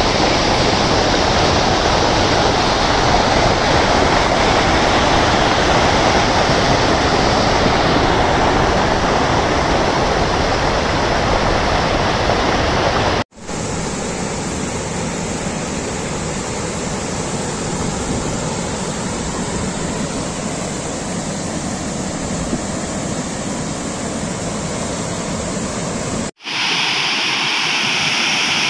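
Loud, steady rush of floodwater pouring over overflowing dam spillways and down a rocky channel. Two abrupt cuts, about 13 and 26 seconds in, each change the sound of the water.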